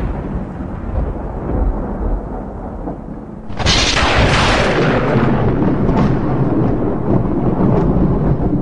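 Thunder: a low rumble that fades, then a sudden loud thunderclap about three and a half seconds in that slowly dies away into a rumble.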